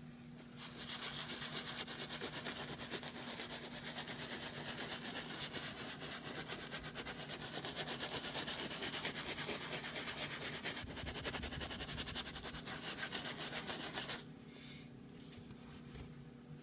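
Bristle brush scrubbing a soiled leather car seat in quick, even back-and-forth strokes, working the cleaner into the leather; the scrubbing stops suddenly near the end.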